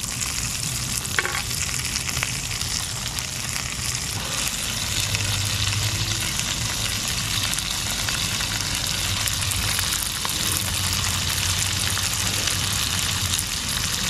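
Whole trout and halved tomatoes sizzling in oil in a frying pan on a gas stove: a steady, dense crackle of frying.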